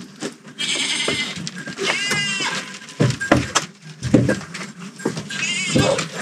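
Goats bleating three times, each a short quavering, high-pitched call, with a few dull knocks in the middle.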